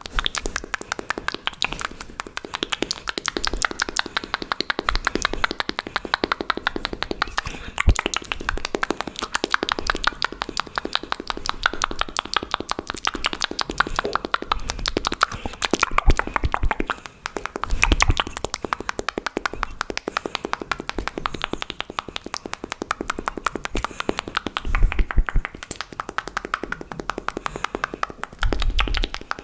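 Fast, aggressive wet mouth sounds close to the microphone: a rapid, continuous stream of tongue clicks and lip smacks, many a second, with a few low thumps mixed in.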